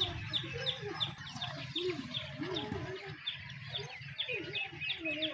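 Chickens clucking, with quick high chirps repeating about three times a second over a steady low hum.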